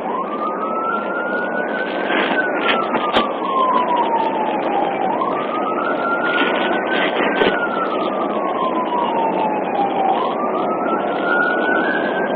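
Police car siren wailing, its pitch rising quickly and then falling slowly in a cycle of about five seconds, over steady road noise.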